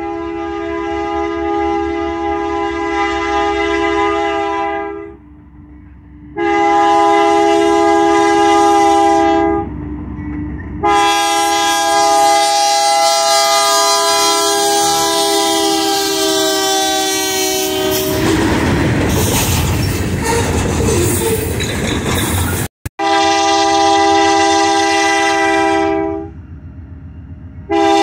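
Multi-tone air horn of a GE C44-9W diesel locomotive sounding several long blasts as the iron ore train approaches; the third blast drops in pitch as the locomotive passes close by. Then the loud noise of the passing locomotives and ore cars, and after a brief break, more long horn blasts from the approaching train.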